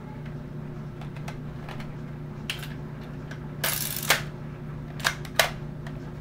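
Scattered sharp clicks and knocks over a steady low hum, with a short rush of noise a little past the middle that ends in a knock, then two more clicks close together.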